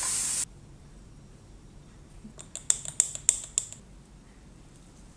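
King oyster mushroom slices sizzling on a ridged grill pan, cut off abruptly within the first half second. About two and a half seconds in comes a quick run of six or seven sharp, crisp clicks lasting about a second.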